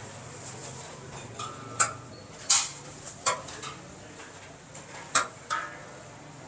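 Steel ladle clinking against large steel cooking pots as curry is scooped out: about six sharp, ringing metal clinks spread over a few seconds, over a low steady background.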